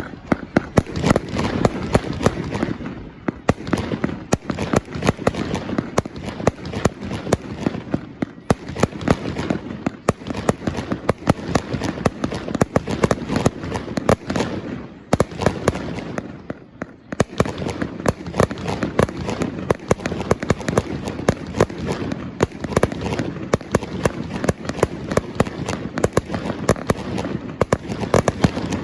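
Fireworks display: a rapid, near-continuous barrage of bangs and crackling that eases off briefly a few times before building again.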